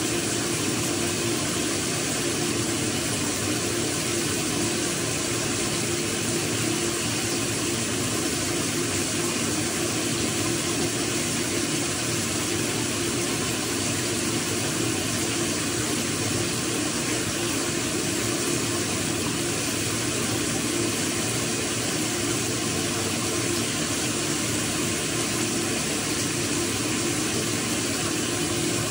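Shower running: a steady spray of water with no break.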